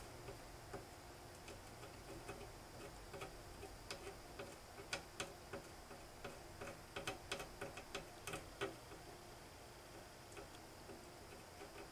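Faint, irregular small clicks and ticks, thickest in the middle, as a soldering iron tip is worked against the solder pads of a Mac LC II logic board while tinning them.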